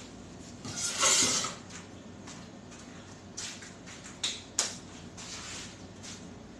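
Pandesal dough portions being gathered and handled on a stainless steel worktable: a loud rustling scrape about a second in, then a few faint knocks and two sharp clicks a little past the middle.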